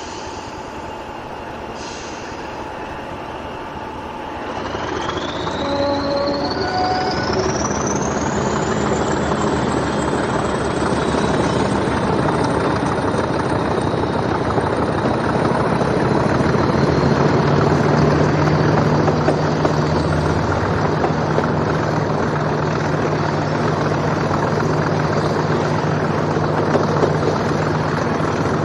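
English Electric Class 40 diesel locomotive powering away. About four seconds in, the engine note opens up and the turbocharger whistle rises steadily in pitch over several seconds, then holds a high steady whistle over the engine's running.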